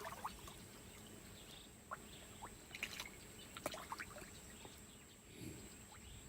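Faint pond water trickling, with a few scattered small clicks.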